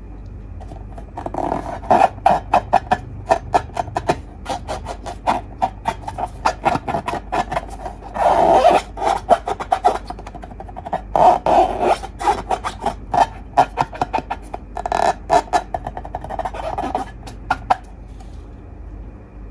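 Slime being stirred and squished by hand, making runs of quick sticky clicks and crackles, in several denser bursts.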